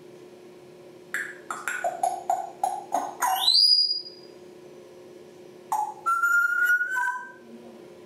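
African grey parrot whistling and chirping: a quick run of about eight short chirps about a second in, ending in a whistle that sweeps sharply upward, then a few seconds later a long whistle held on one slightly rising note.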